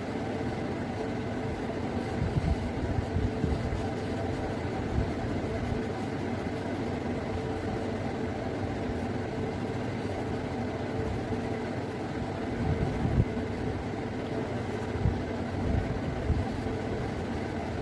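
A steady mechanical background hum with a few faint tones in it, and soft low bumps now and then, most about two to four seconds in and again near the end.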